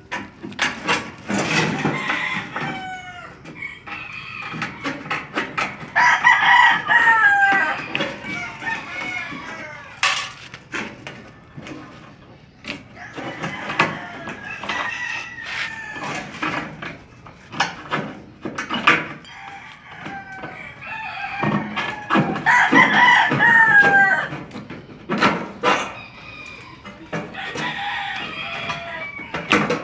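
Rooster crowing, with two long, loud crows about 6 and 22 seconds in and weaker fowl calls between them. Under them run the short clicks of tin snips cutting pre-painted sheet-metal gutter.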